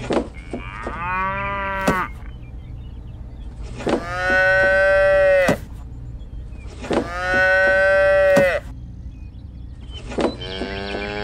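Cattle mooing: four long moos, about three seconds apart, the middle two the loudest.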